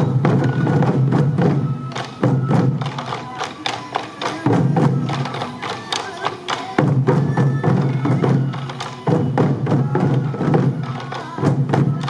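Sansa odori festival music: a group of sansa taiko drums worn at the waist, beaten together in a steady repeating rhythm, with transverse flutes playing the melody over them.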